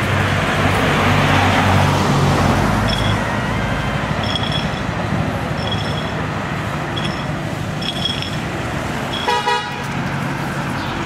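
Street traffic with a car's engine passing by in the first two seconds, a string of short high chirps in the middle, and one short car horn toot about nine seconds in.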